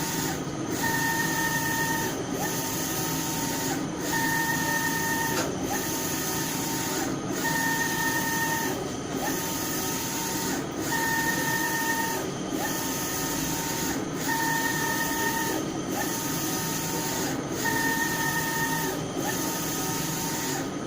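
UV flatbed/roll printer's print-head carriage running back and forth in regular passes, one about every 1.7 seconds. Each pass carries a steady motor whine, with a short pause at each turnaround, over a constant machine hum.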